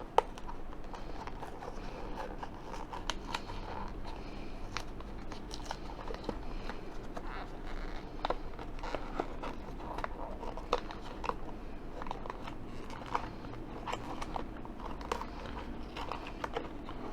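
Toy blind-box packaging being ripped open and handled by hand: irregular crackling, crinkling and sharp clicks, the sharpest just after the start.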